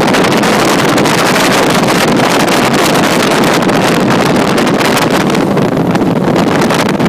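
A 36-foot Skater catamaran powerboat running fast, its engines and the rush of wind and water making one loud, steady roar, with wind buffeting the microphone in the open cockpit.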